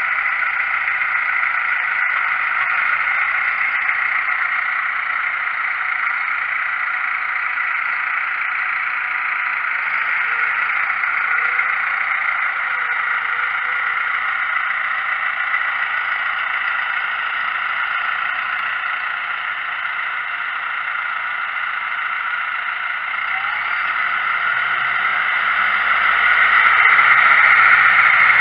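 Massey Ferguson tractor's diesel engine working steadily under load as it pulls a reversible plough through the soil, growing louder near the end as it comes close.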